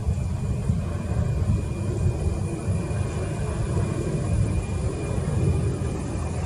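Boeing 737 airliner on landing approach: a steady low rumble of its jet engines, with a faint thin high whine above it.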